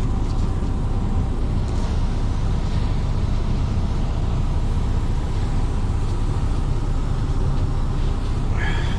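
MAN truck's diesel engine idling steadily, heard from inside the cab as an even low rumble.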